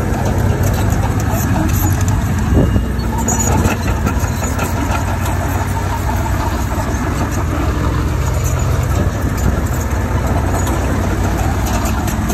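Diesel engine of heavy construction machinery running steadily, with a couple of short knocks a few seconds in.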